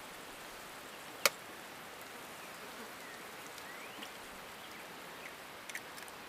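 Tomato mixture for shakshuka sizzling steadily in a frying pan, with one sharp crack about a second in as an egg is cracked on the pan and a few faint clicks near the end.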